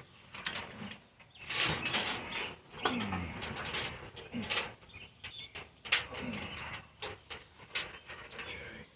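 Wiring harness and electrical tape being handled and pulled apart: irregular rustling and crinkling with short clicks, and a few brief low murmurs from the person working.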